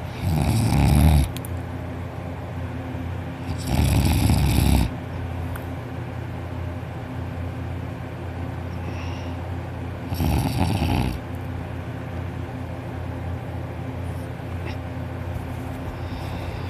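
A person in deep sleep snoring heavily: three loud snores, each about a second long, near the start, about four seconds in and about ten seconds in, over a steady low hum.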